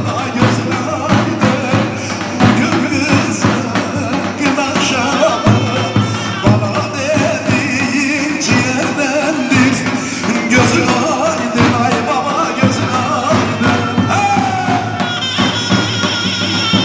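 Zurna and davul playing a lively folk dance tune: the zurna's reedy melody winds up and down over a steady beat of davul drum strokes.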